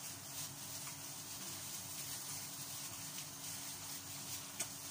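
Gloved hands squishing raw chicken pieces in marinade in a plastic bowl: faint wet squelches and small clicks with the crinkle of disposable plastic gloves, over a steady low hum.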